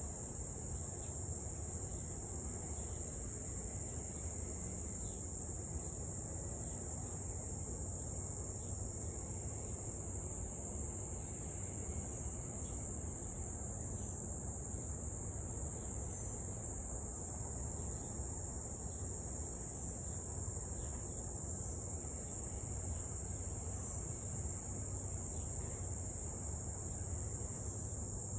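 A steady chorus of summer insects: a continuous high-pitched buzz that never breaks, over a low background rumble.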